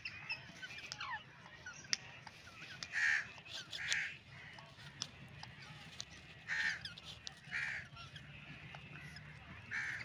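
Rose-ringed parakeets giving harsh squawks in pairs about a second apart: two about three seconds in, two more past halfway, and one at the end. Faint chirping of small birds runs underneath.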